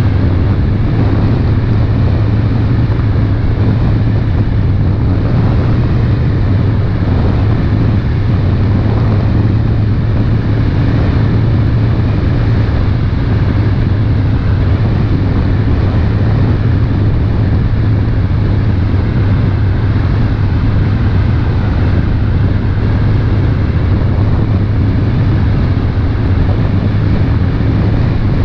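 Passenger launch's engine running steadily under way, a constant low hum, over the rush of wind and water.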